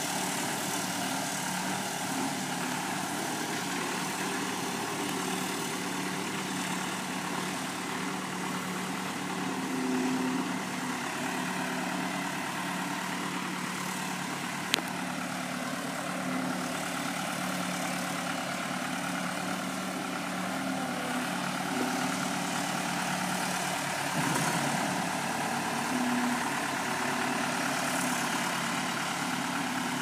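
Case 430 skid steer's diesel engine running steadily as the machine drives along a dirt track, with one sharp knock about halfway through.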